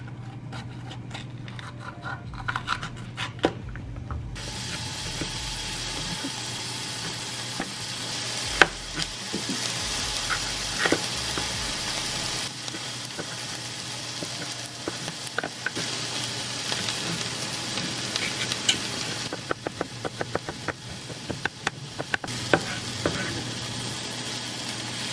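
Food sizzling in a hot frying pan, a steady hiss that starts abruptly about four seconds in. Over it, a ceramic knife taps on a plastic cutting board as peppers are sliced, with a quick run of chops about two-thirds of the way through.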